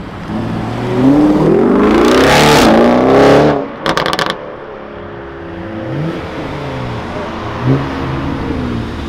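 Audi RS6 Avant's twin-turbo V8 accelerating hard away, its pitch climbing through about two and a half seconds of full throttle. A brief burst of sharp crackles about four seconds in as it lifts off, then the engine runs on more quietly as the car drives off.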